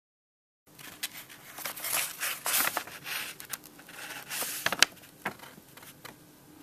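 Close handling noise: rustling and crinkling against the microphone with scattered sharp clicks. It starts suddenly under a second in, and the sharpest click comes a little before the end.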